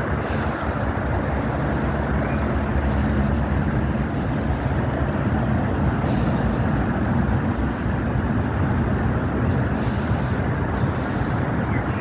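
Steady low rumble of outdoor background noise, with a faint hum and no bird calls standing out.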